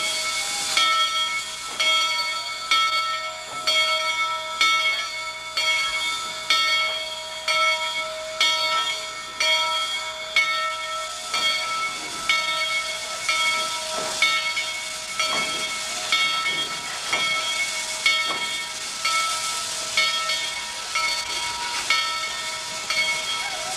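Steam locomotive working a train, its exhaust chuffing in a steady beat of about one chuff a second, over a continuous steam hiss with a steady high-pitched ringing tone.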